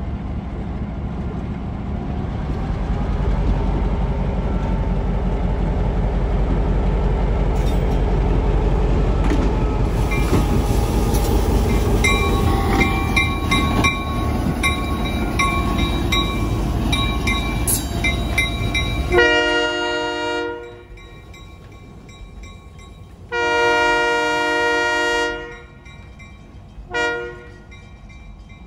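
California Western No. 64 diesel locomotive running heavily as it rolls past, its wheels clicking over the rail joints. About 19 seconds in the air horn blows two long blasts and a short one, the start of the long-long-short-long grade-crossing signal.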